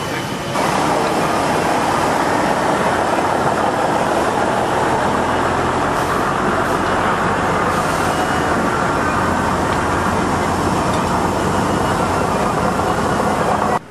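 A machine running steadily: a loud, even noise with a low hum under it, coming in suddenly just after the start.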